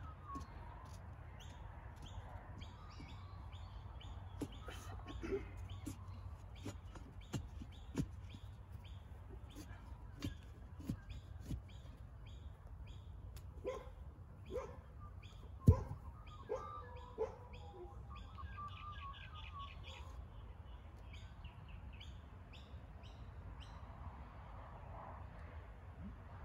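A steel digging bar thudding into soil as it tamps earth around a timber post: irregular knocks, the loudest a sharp one about two-thirds of the way through. Birds chirp throughout.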